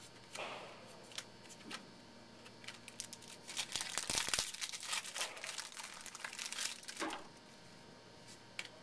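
Trading-card pack wrapper crinkling as it is torn open and handled, a dense run of crackles from about three seconds in until about seven seconds, with a few light crackles around it.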